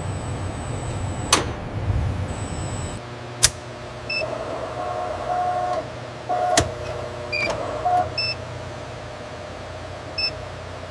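Assembly machinery at work: an electric motor whirs in short runs, sharp clicks sound several times, and short high electronic beeps sound four times, over a low steady hum.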